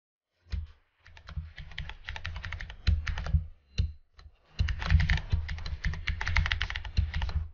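Computer keyboard typing: fast runs of key clicks, with brief pauses about a second in and around four seconds in.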